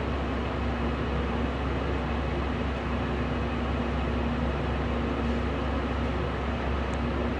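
Steady mechanical hum with an even hiss, unchanging throughout: a machine such as a fan running.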